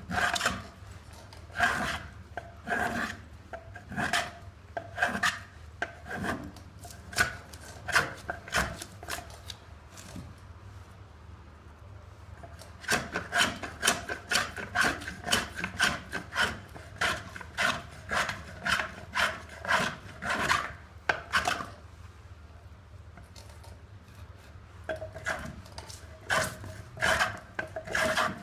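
Hand plane shaving a pine log: a run of short rasping strokes, about one or two a second, with two brief pauses.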